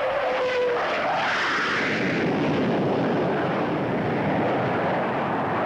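Vickers Valiant jet bomber flying past with its four turbojets running: a steady whine that sinks slightly in pitch and stops about a second in, giving way to a broad rushing jet noise.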